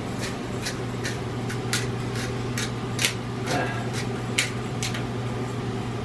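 Cheap pepper grinder being twisted, giving irregular sharp clicks about once or twice a second as it struggles to grind. A steady low hum runs underneath.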